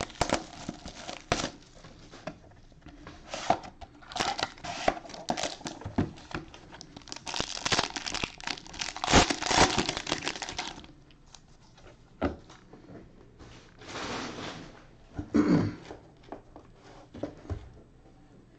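Shrink-wrap and a foil trading-card pack being torn open and crinkled, in dense crackling bursts that are loudest about two-thirds of the way through the first half. After that come only a few short rustles as the cards are handled.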